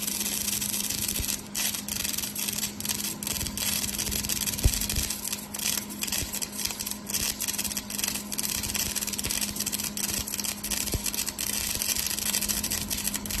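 Laser welding under way: a steady high hiss with irregular crackling, over a steady low hum, and one sharp click about a third of the way in.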